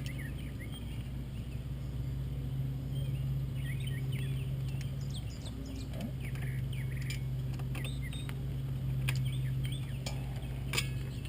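Small birds chirping over a steady low hum, with a few light metallic clicks of hand tools on the cable fittings, the clearest near the end.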